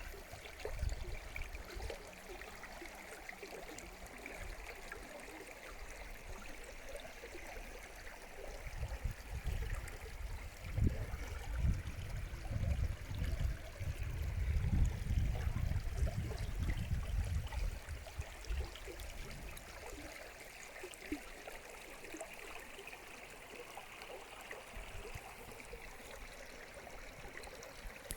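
Stream water flowing steadily, with a low rumble that swells from about a third of the way in to past the middle.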